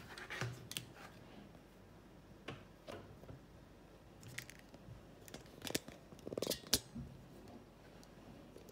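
A cloth wiping window glass from the other side of the pane, heard as scattered faint taps and rubs, with a short squeak about six and a half seconds in.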